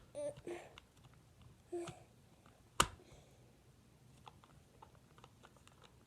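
Plastic clicks and taps from handling a small plastic toy figure and toy truck, with one sharp click a little before halfway and a run of small ticks in the second half. A couple of brief murmured vocal sounds come near the start.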